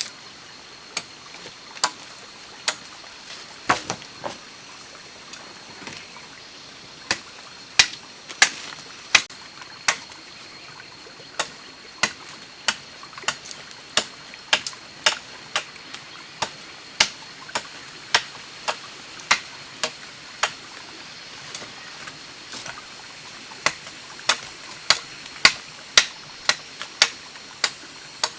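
A series of sharp clicks or taps at uneven intervals, about one or two a second, over a steady hiss.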